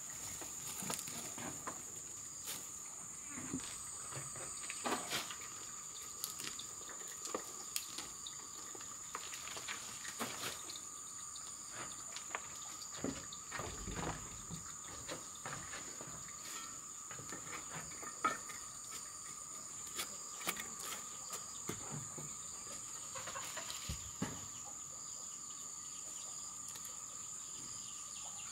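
Steady high-pitched drone of insects, with a fainter lower steady tone beneath it. Scattered short rustles and clicks come from hands working dry vines and soil in a wooden planter box.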